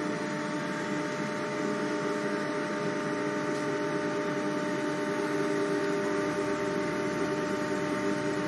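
Steady hum and rushing noise inside a running Z 5600 double-deck RER C electric train, with a few constant tones held throughout.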